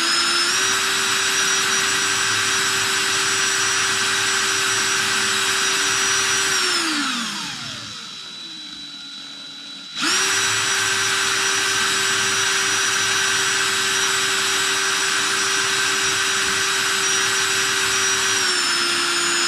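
DeWalt cordless drill running at speed, spinning a brass cartridge case in a shell holder while it is wiped with a cloth to remove leftover polish. The motor whine runs steadily, winds down with falling pitch about seven seconds in, then starts up again abruptly a few seconds later and drops slightly in pitch near the end.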